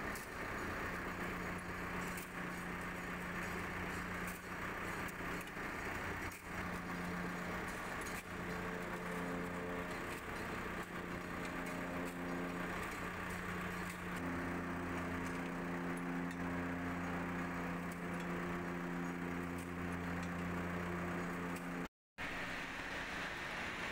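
An engine running steadily at idle, with occasional light metallic clinks from a hand wrench on the track shoe bolts. The sound drops out for a moment near the end.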